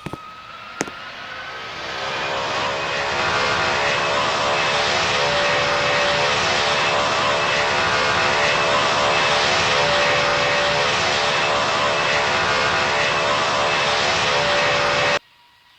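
Airplane engine noise that builds over the first few seconds with a rising whine, then holds loud and steady. It cuts off abruptly near the end.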